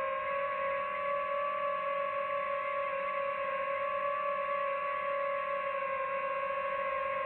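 DJI FPV drone's motors and propellers whining at a steady cruise pitch, a level hum with only slight wavering.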